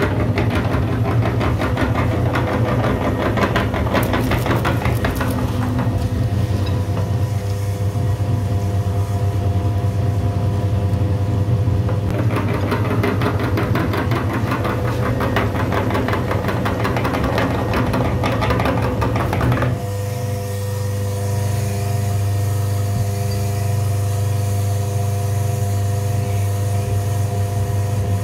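An engine running steadily with a rapid, even pulse. Its sound changes abruptly near the end, becoming duller with a brief dip in level.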